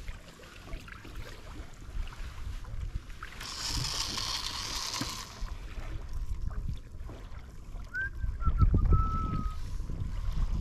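Sea water lapping around a small kayak, with wind gusting on the microphone and growing stronger near the end. About three and a half seconds in comes a hissing rush lasting a couple of seconds. Near the end there is a brief thin whistle.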